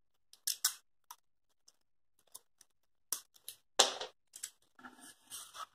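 Cello tape being handled and cut while taping foam wing pieces together: short crackling snips and rustles in small clusters, a couple about half a second in, several around three to four seconds in, and a longer rustle near the end.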